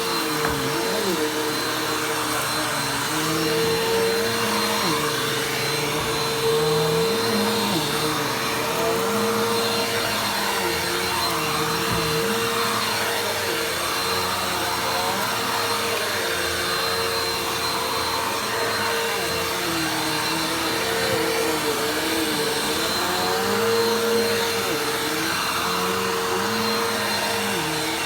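Vacuum cleaner running continuously: a steady whine over a rushing hiss, with a lower hum that wavers up and down in pitch.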